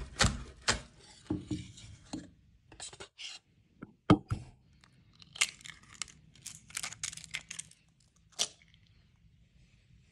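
Knife chopping green onions on a wooden cutting board, a run of quick knocks, then eggs cracked into a glass bowl: a sharp crack about four seconds in, a crackle as the shell is pulled apart, and another crack near the end.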